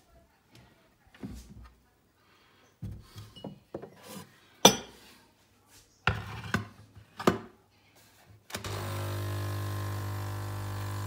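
Knocks and clatter of a cupboard door and a ceramic mug being handled and set down, the sharpest knock about halfway through. About two-thirds of the way in, a Nescafé Dolce Gusto capsule coffee machine's pump starts with a steady hum as it begins brewing.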